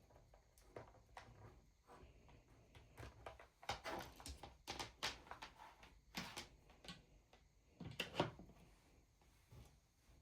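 Faint handling noises: a scatter of short knocks, clicks and rustles as objects are moved about, with the loudest cluster about four seconds in and a sharper knock about eight seconds in.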